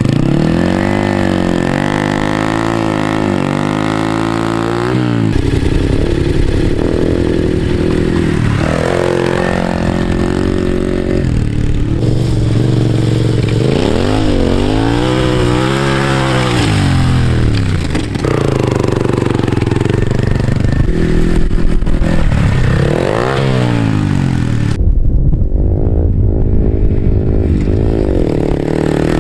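Honda Grom's 125 cc single-cylinder four-stroke through a Black Widow aftermarket exhaust, ridden off-road: the engine revs rise and fall over and over as the throttle is opened and closed, and the sound changes abruptly a few times.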